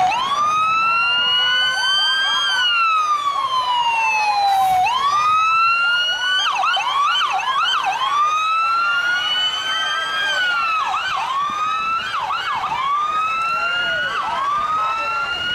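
Emergency-vehicle sirens wailing. One slow wail rises and falls about every five seconds, and from about six seconds in a second siren overlaps it with quicker short sweeps.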